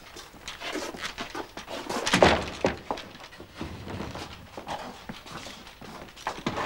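Scuffling footsteps and knocks of several people coming in through a doorway, with one loud thump about two seconds in.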